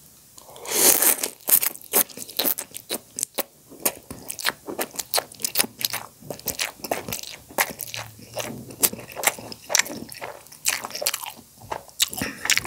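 Close-miked slurping and chewing of soupy instant noodles. A loud slurp comes about a second in as a mouthful is sucked in, then steady wet chewing with many quick mouth clicks.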